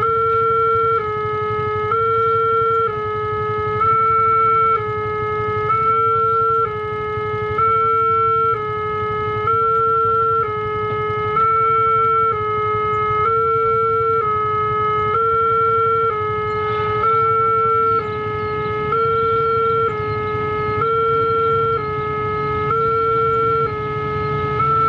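Railway level crossing warning alarm sounding, two steady tones alternating high and low, each held about a second, signalling that a train is approaching.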